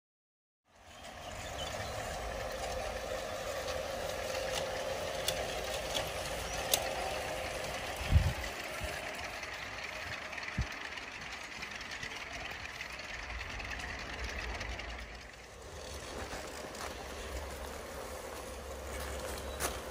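G-scale model diesel locomotive running on garden track, its onboard sound system playing a steady diesel engine sound. A couple of sharp knocks come partway through.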